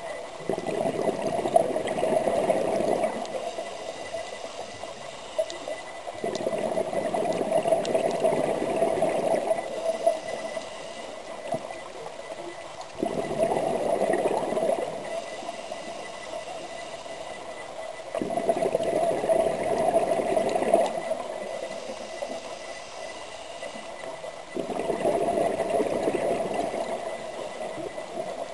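Scuba regulator exhaust bubbling underwater as a diver breathes out. There are five bursts of gurgling bubbles, each about three seconds long and coming every five to six seconds, with quieter breaths in between.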